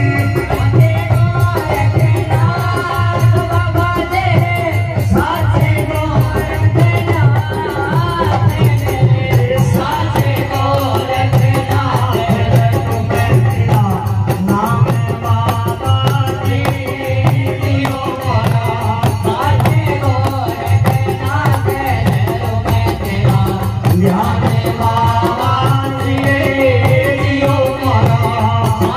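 Live Rajasthani devotional bhajan: a man singing over a barrel drum and the steady fast clash of hand cymbals played by the dancers.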